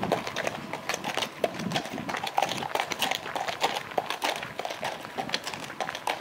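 A Clydesdale-cross mare's hooves and a person's boots crunching on gravel at a steady walk, with many irregular crunching steps.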